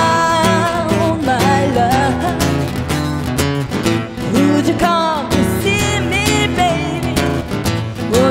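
A blues band playing live: a voice singing over guitar and a steady beat.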